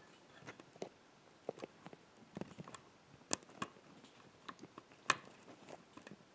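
Faint, irregular small metal clicks and ticks of a pick working the pins of a Yardeni 6-pin dimple lock under tension, as each pin is probed after the false set was lost; a few sharper clicks stand out, about three and five seconds in.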